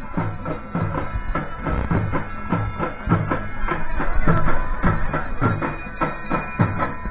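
Fast, steady drumming with a brisk beat, over a sustained melodic line, as festival music accompanying a palanquin dance.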